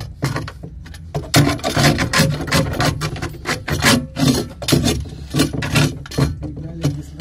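Irregular rough scraping and rubbing, many short strokes in quick, uneven succession, over a steady low hum.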